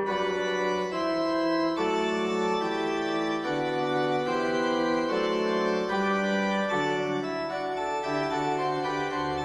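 Background music of held, organ-like chords that change about once a second.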